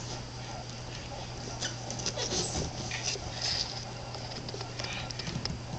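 Faint, scattered light taps and scrapes from a baby's hands and bare feet on a hardwood step and floor, busiest in the middle, over a steady low hum.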